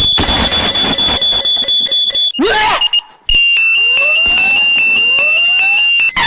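Electronic alarm tones played one after another: a steady high tone for about two seconds, a quick rising sweep, a short break, then a high tone over rising sweeps that repeat about every second and a half.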